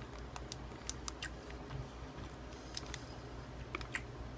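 A person chewing a soft, chewy chocolate chip protein cookie: scattered small mouth clicks over a faint low hum.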